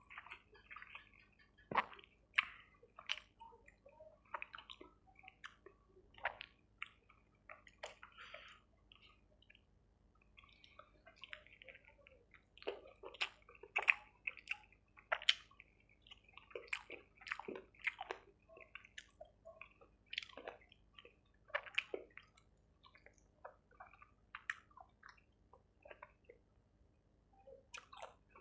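Close-miked eating sounds: wet chewing, lip smacks and mouth clicks of someone eating saucy chicken curry with rice, in irregular bursts.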